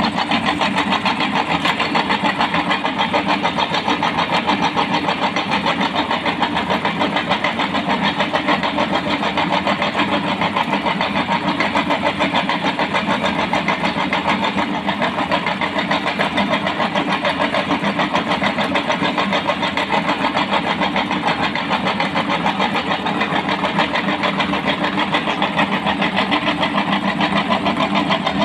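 Electric meat grinder running steadily as it grinds jelly candy, its motor and gears whirring with a fast, even pulse.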